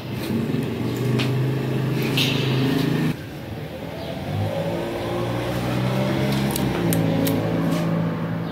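A motor vehicle's engine running with a steady hum. It drops away about three seconds in, then rises again and holds.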